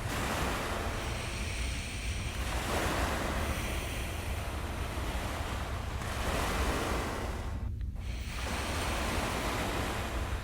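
Ocean waves: surf washing in and drawing back in slow swells, one after another.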